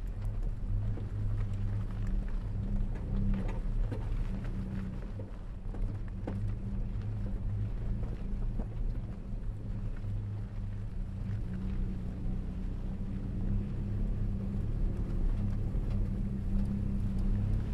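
Off-road vehicle's engine running at low, steady revs as it drives along a dirt trail, with a few light knocks and rattles.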